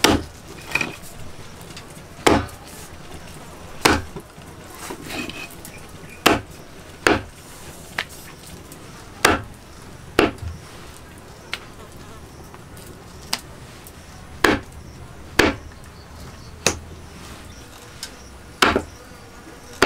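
A heavy knife chopping pieces of goonch catfish on a wooden log block: about a dozen sharp chops, irregularly spaced, roughly one every second or so.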